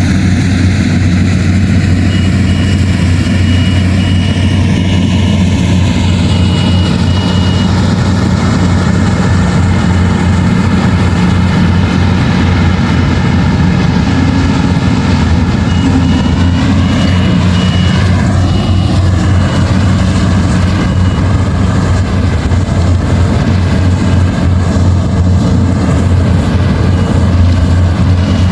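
Rice combine harvester running steadily, its engine holding a constant low hum.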